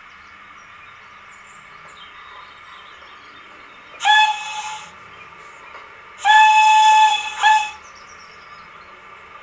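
Digital steam-whistle sound from a Youchoos sound file on a Zimo decoder, played through a model locomotive's small built-in speaker: one short blast about four seconds in, then a long blast followed at once by a short toot. A steady faint hiss runs underneath.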